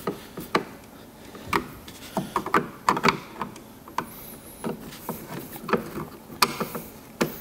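Phillips screws being tightened with a hand screwdriver through a speaker grill into a plastic motorcycle saddlebag lid: irregular small clicks and knocks of the screwdriver and plastic parts.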